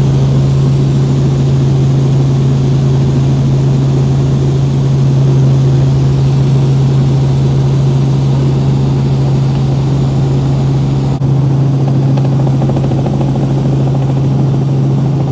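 Helicopter in flight heard from inside the cabin: a loud, steady drone of engine and rotor with a strong low hum under a rushing noise.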